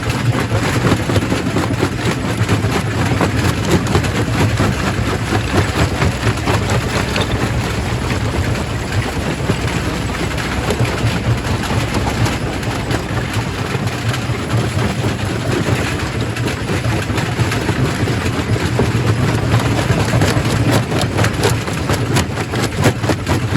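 Primary rock crusher running, rocks cracking and clattering in many quick sharp impacts over a steady low machinery drone.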